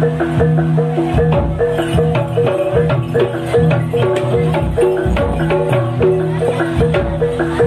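Javanese gamelan accompaniment for a jaranan horse dance: mallet-struck metal keys and gongs play fast, repeating interlocking notes over drum strokes and a low held tone.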